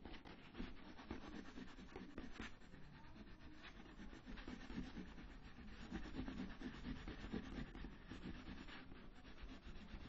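A black crayon rubbed back and forth on paper to shade a drawing: a continuous scratchy rubbing made of quick short strokes.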